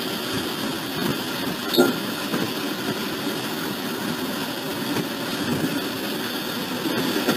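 Moving locomotive heard from its cab: a steady rumble of engine and wheels on the rails, with a single metallic clank about two seconds in.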